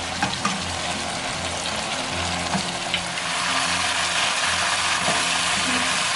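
Pork and onions in gochujang sauce sizzling as they are stir-fried in a wok, with a few light taps and scrapes of a wooden spatula. The sizzle grows louder about three seconds in.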